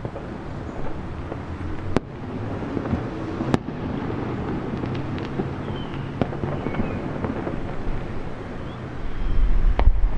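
Aerial fireworks bursting and crackling, with a few sharp separate bangs, the clearest about two and three and a half seconds in. Near the end, wind buffets the microphone with a heavy low rumble.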